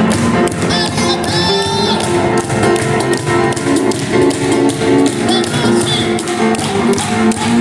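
Live instrumental by a piano and cajón duo: a Kawai piano playing over a steady beat of hand strikes on the cajón.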